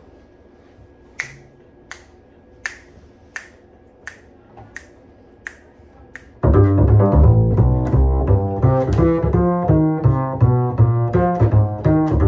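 A steady count-off of finger snaps, about one every 0.7 seconds, then about halfway through an acoustic double bass comes in loud, plucked pizzicato in a moving line of notes.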